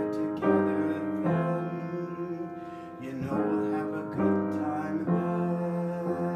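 Grand piano played solo, with slow chords struck about once a second and left to ring.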